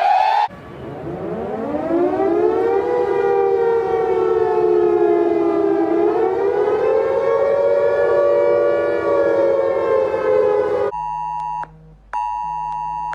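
Emergency-alert civil defense siren winding up from a low pitch and then slowly wavering up and down. Near the end it gives way to a steady electronic alert tone made of several pitches, broken once by a short gap.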